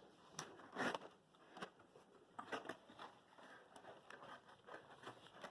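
Faint handling noises of a cardboard advent calendar box and its contents: scattered light rustles, scrapes and taps.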